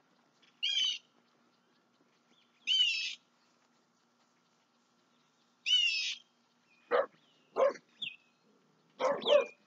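A dog barking: three high, short yelps a couple of seconds apart, then a quicker run of lower, sharper barks near the end.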